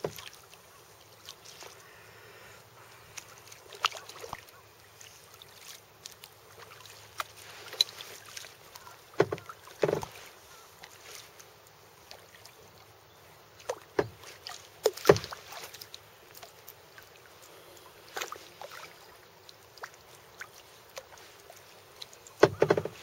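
Kayak paddle blades dipping and splashing in calm lake water, one stroke every few seconds at an uneven pace.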